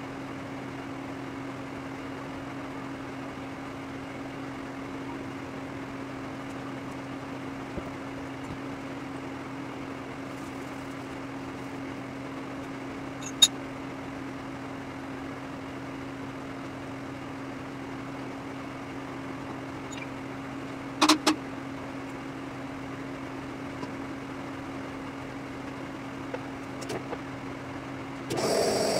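Steady low hum of shop machinery running, with a single sharp metallic click about halfway through and a quick double clink of metal a little later. Just before the end a louder mechanical sound starts up.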